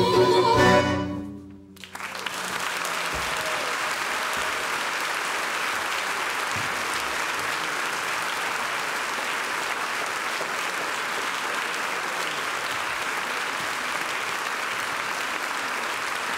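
A chamber ensemble with strings ends on a final chord that dies away about a second and a half in. After a brief pause, the audience breaks into steady applause.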